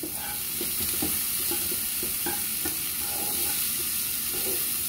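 Diced vegetables (green onion, celery, red bell pepper) sizzling in oil in a frying pan, stirred and turned with a spatula that scrapes and taps against the pan in short strokes over a steady hiss.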